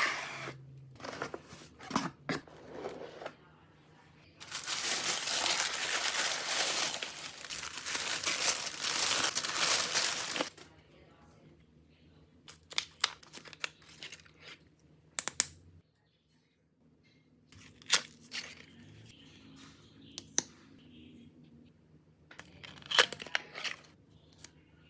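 Packaging being unboxed: a long stretch of paper tearing and crinkling for about six seconds, with short rustles and sharp clicks and taps of boxes being handled before and after.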